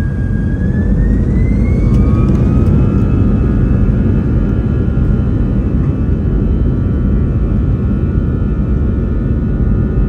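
Airbus A320's jet engines spooling up to takeoff thrust, heard from the cabin over the wing: a whine that rises in pitch over the first few seconds and then holds steady, over a heavy rumble of the takeoff roll.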